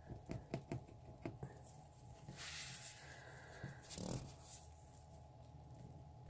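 Faint rubbing as acrylic paint is scrubbed off a doll's plastic. There is a quick run of short strokes at first, then a longer scrub, and a soft knock about four seconds in.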